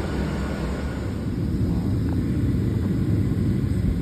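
Steady low rumble and air noise inside a parked airliner's cabin at the gate.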